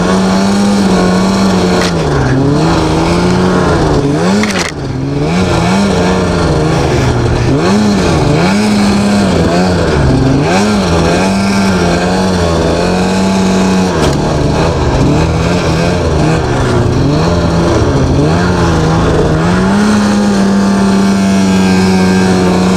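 Ski-Doo MXZ snowmobile's two-stroke engine running under way, its pitch rising and falling again and again as the throttle is worked, then held steady near the end.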